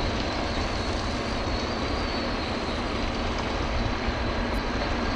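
Wheel loader's diesel engine working in a gravel quarry, heard as a steady low rumble with hiss.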